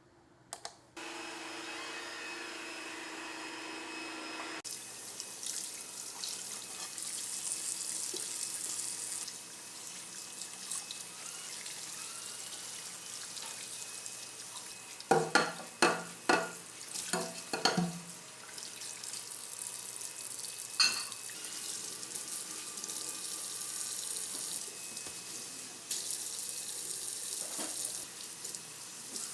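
Water running from a tap into a sink as a steady hiss, with a few loud sharp knocks about halfway through and another a few seconds later.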